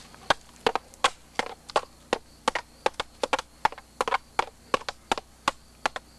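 Wooden sticks used as swords clacking against each other in a staged duel: a run of sharp knocks, about three a second and unevenly spaced.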